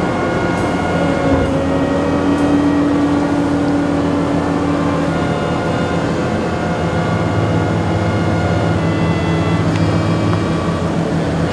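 Large hydraulic mining excavator running steadily as it digs into broken rock and lifts a loaded bucket: a diesel engine hum with a held mechanical whine over it.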